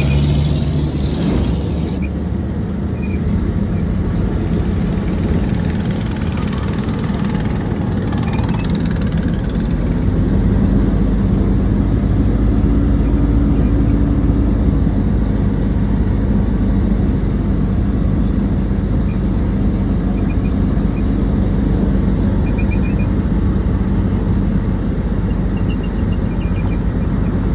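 Boat engine running steadily under way, a loud low drone that grows slightly heavier about ten seconds in.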